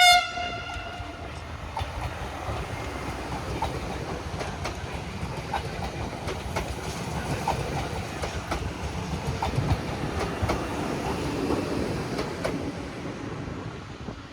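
A train passing at speed, its wheels clicking regularly over the rail joints with a steady rumble that fades near the end. A short horn note at the start dies away within the first second.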